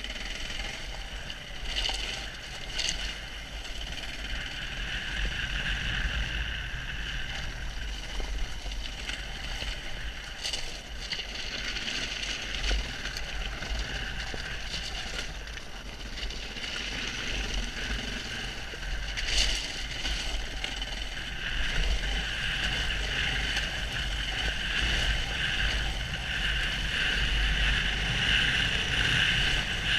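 KTM 690 Enduro R's single-cylinder four-stroke engine running under way off-road, heard from a helmet camera with wind rumbling over the microphone and getting louder over the last several seconds. A few sharp knocks cut through.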